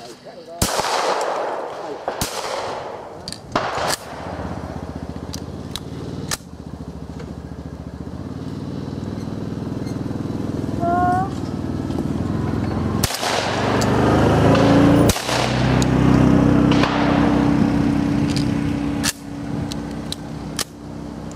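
Shotgun reports at clay targets: a pair about two seconds apart near the start, another loud pair about two seconds apart past the middle, and single shots between and near the end, each with a short echoing tail. A steady low hum builds up through the middle.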